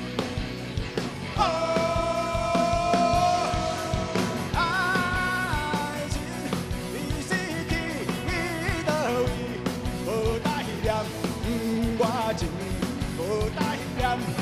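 Live rock band playing an instrumental passage between sung lines: a lead melody with held, bending notes over a steady drum beat.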